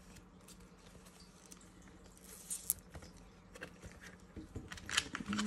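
Paper banknotes and the clear plastic pouch of a ring binder rustling and crinkling as a wad of cash is handled and pulled out, with a few faint taps; a brighter crinkle comes about two and a half seconds in and a few sharper rustles near the end.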